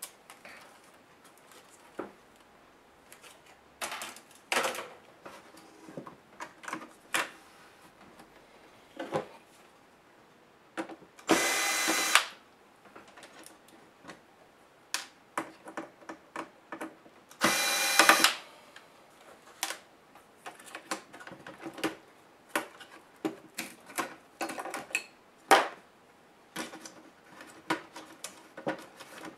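Scattered clicks, taps and knocks of an HP G71 laptop's plastic case parts and cables being handled and pulled apart, with two whirs of about a second each from a small electric motor, about a third of the way in and again some six seconds later.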